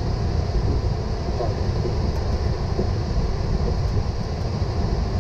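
Steady low rumble with a hiss in the flight deck of a Boeing 777 taxiing on the ground.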